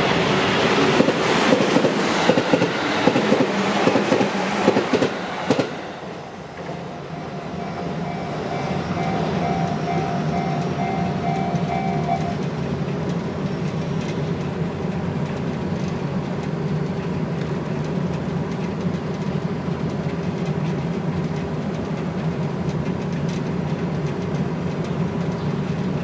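A train passes over the level crossing, its wheels clattering over the rail joints, and fades out about six seconds in. The crossing's warning bell then rings on faintly in quick pulses and stops about twelve seconds in, as the barriers lift. After that there is a steady, even background noise.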